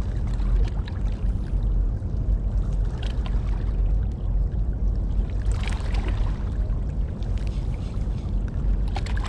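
Wind buffeting the microphone: a steady low rumble, with a few faint clicks and a brief hiss about halfway through.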